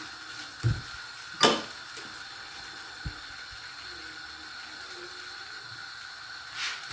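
A metal spoon knocking against a nonstick frying pan while spreading oil on a cooking chapati: a soft knock, one sharp clink about a second and a half in, and a small click around three seconds. A faint steady hiss follows.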